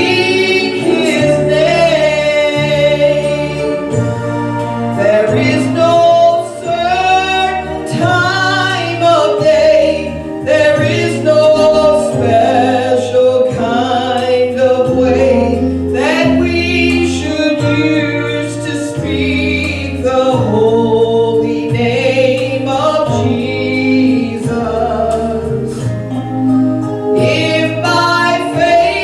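A gospel song: singing over instrumental accompaniment, with a bass line moving to a new note every second or so.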